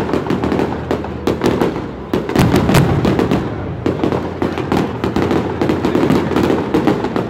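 Aerial fireworks bursting in a rapid barrage, many sharp bangs following one another without a break.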